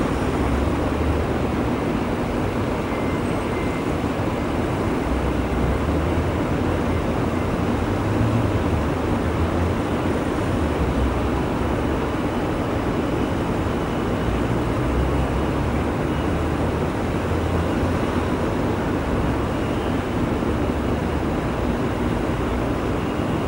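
Steady rumbling outdoor noise, even throughout, with no distinct events.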